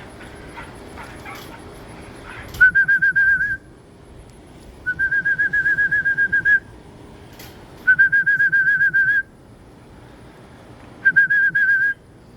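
A trilling whistle sounded four times, each a warbling call of one to two seconds: a pigeon fancier whistling to call his racing pigeons in to the loft.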